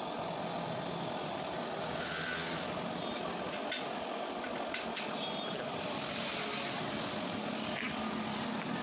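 A steady mechanical drone, with a few faint clicks near the middle from the plastic parts of a car side-mirror motor assembly being handled.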